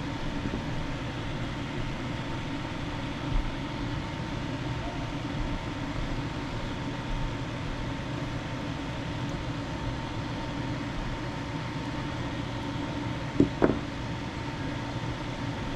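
Steady fan-like hum with a faint constant high tone. A light tap comes a few seconds in, and two quick taps come near the end.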